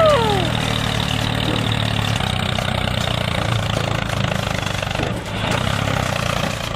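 Tractor engine running steadily at a low, even pitch. It opens with a short falling glide in the first half second and dips briefly about five seconds in.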